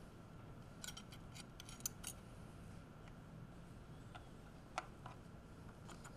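Faint small metallic clicks and taps as the sections of an S&S oil pump are slid onto the shaft and seated against the cam plate: a quick cluster of clicks about a second in, then a single sharper tick near five seconds.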